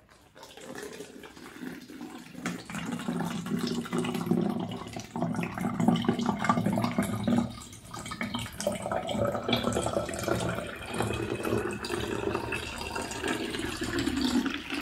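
Water pouring from a plastic jug through a plastic funnel into a plastic bottle, a steady splashing fill that eases briefly about halfway through.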